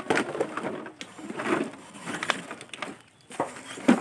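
Empty plastic bottles crackling and knocking together as they are handled and dropped into a woven plastic sack, with a sharp knock near the end.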